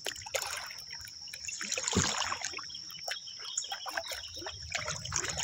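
Water trickling and dripping with small splashes, and a louder splash about two seconds in, over a steady high-pitched tone.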